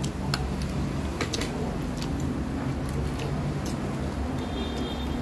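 Spoon and fork clicking and scraping against plates as people eat, a dozen or so short clinks scattered through, over a steady low hum.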